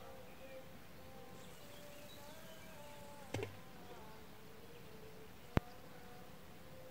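Quiet outdoor ambience with faint, wavering insect-like buzzing, broken by a soft knock about halfway through and a single sharp click a couple of seconds later.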